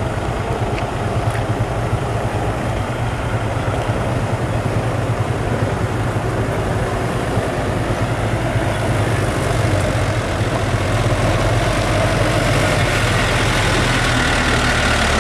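Diesel engine of an empty Hino six-wheel light truck running as it drives slowly along a dirt road toward the listener, getting somewhat louder over the second half as it draws close.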